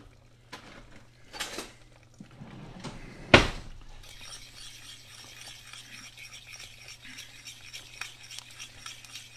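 Utensils clinking briefly, then one sharp knock of a stainless saucepan set down on a glass-top stove about three seconds in. After that a wire whisk scrapes steadily round the pan, beating a thickening flour-and-cream white sauce.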